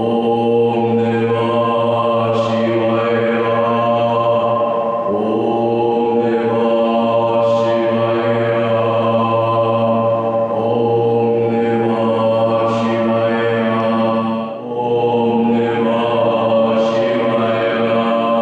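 Deep, droning mantra chant, like Buddhist meditation chanting: long held low notes whose vowel shifts about every five seconds, with a short break for breath about three quarters of the way through.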